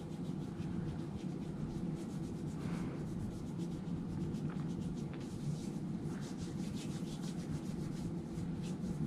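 Two hands rubbing together, working alcohol hand rub over the skin in repeated faint strokes, over a steady low hum.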